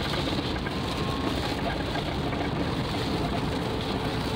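Steady engine and tyre noise inside a Volkswagen Gol driving on a wet road in heavy rain, with the hiss of spray and rain on the car.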